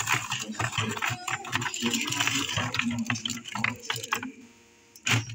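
Things being moved around inside a refrigerator: a run of clicks, knocks and rustles from containers and packaging, easing off near the end before one sharp click.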